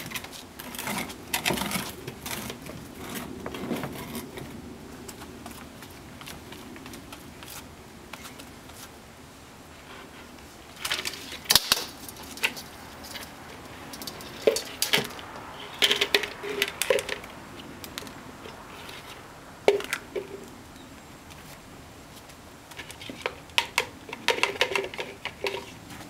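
A child handling plastic toys and a plastic bucket on a paved patio: scattered clicks, knocks and clatters in several short bursts, the sharpest about twelve and twenty seconds in.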